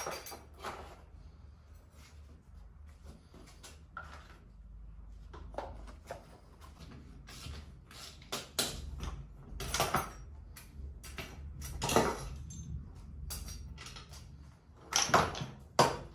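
Irregular metallic clicks, clanks and knocks of hand tools and parts as a scooter engine is dismantled on the bench, with several louder knocks in the middle and near the end. A faint steady low hum sits underneath.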